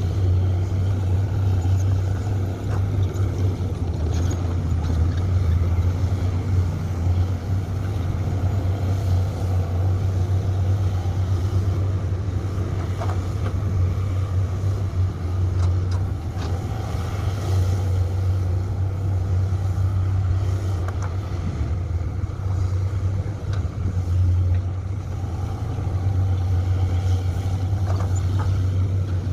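Komatsu PC200 hydraulic excavator's diesel engine running steadily under working load, its low drone swelling and easing a little as it digs and loads, with a few faint knocks.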